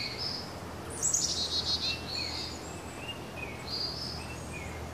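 Woodland songbirds. One bird sings a short, high trilled phrase that runs downward about a second in, while others give scattered short chirps over faint steady background noise.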